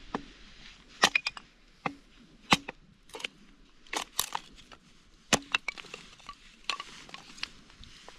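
Wood being chopped and split for kindling: sharp irregular cracks, roughly one a second, some louder than others.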